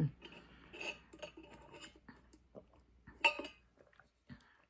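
Small clinks and taps of a drinking cup with a straw being handled, with one louder clink a little over three seconds in.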